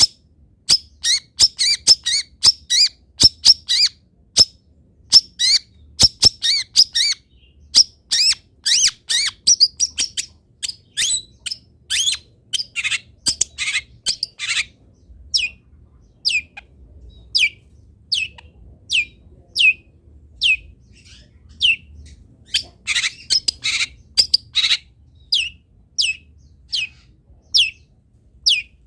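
Long-tailed shrike (cendet) calling. A fast chattering run of sharp, high notes gives way about halfway through to a steady series of single downward-slurred notes, about one and a half a second, with another brief burst of chatter near the end.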